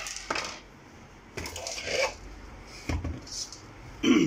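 Handling noise from an LCD panel in its metal frame being gripped and shifted on a workbench: a few irregular scrapes and knocks.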